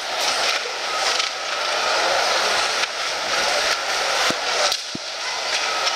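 Steady crowd noise in an ice hockey arena during play, with a few sharp knocks of sticks and puck.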